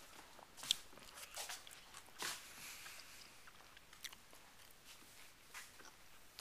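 A person chewing food, with a few faint, irregular crunches and clicks.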